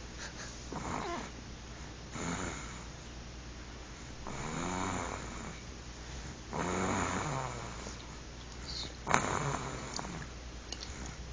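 A boy snoring in his sleep, about five slow snores spaced roughly two seconds apart, with a sharp click about nine seconds in.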